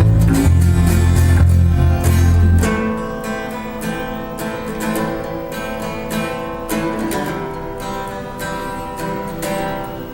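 Instrumental rock/jazz band playing live: plucked and strummed guitar notes, with heavy low bass notes that drop out about three seconds in, leaving the guitars.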